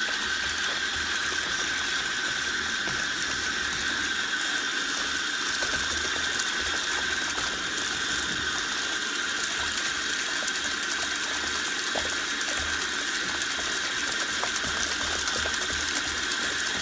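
Bathtub faucet running steadily, its stream pouring over a spinning bubble bar and splashing into a tub of foamy water.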